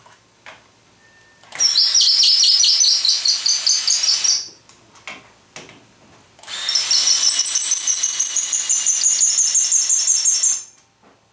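Cordless drill driving hardware into a glued-up wooden frame, in two runs: one starting about a second and a half in and lasting about three seconds, and a longer one of about four seconds starting past the middle. Each is a high-pitched whine with a fast rattling pulse.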